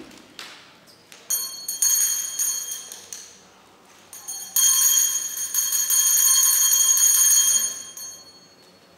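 A bell ringing with a rapid rattling strike, in two rings of about two and three seconds: a school bell sounding.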